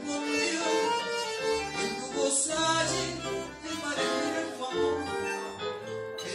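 A vals (tango waltz) played live on bandoneón and keyboard, with a woman singing the melody.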